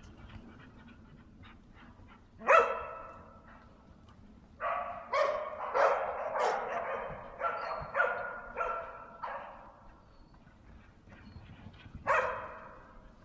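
Bedlington terrier barking at a wild boar it is holding at bay: one bark, then a quick string of about eight barks over some five seconds, then one more bark near the end.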